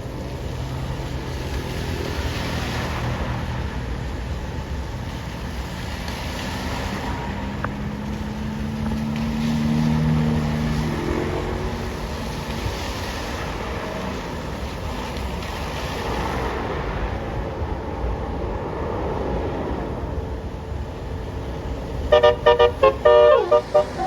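Road traffic passing, with a heavy vehicle's engine drone swelling about ten seconds in. Near the end, a bus's Basuri telolet horn plays a rapid, stuttering multi-note tune, the loudest sound.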